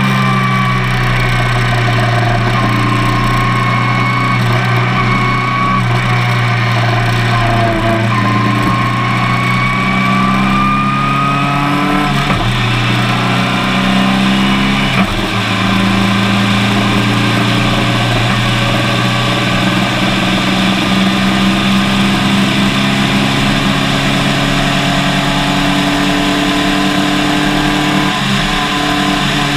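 Open-wheel formula race car's engine heard from a camera mounted on the car, running hard around the track with a steady drone and a whine that rises and falls. The note breaks briefly about twelve and fifteen seconds in and drops at the very end.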